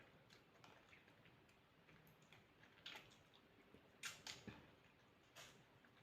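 Faint mouth sounds of someone eating: quiet chewing with a few soft, sharp clicks and smacks, about three, four and five seconds in.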